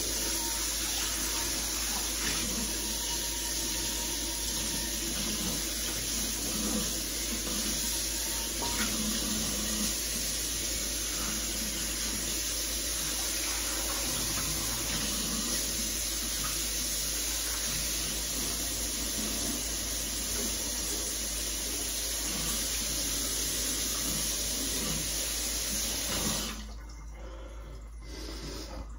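Kitchen faucet running steadily into the sink while a frying pan is washed under it. The water shuts off near the end.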